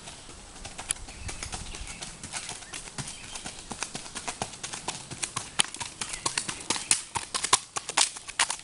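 Hooves of a ridden Norwegian Fjord stallion striking a gravel lane in a quick run of clip-clop strikes, growing louder about halfway through as the horse comes close.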